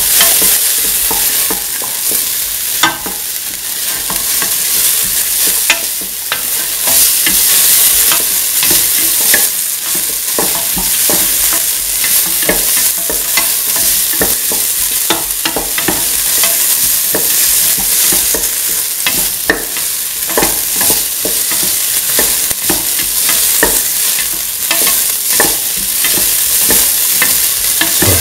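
Chopped onions and shallots frying in oil in a metal pan, sizzling steadily. A spatula stirs them, with frequent short scrapes and taps against the pan.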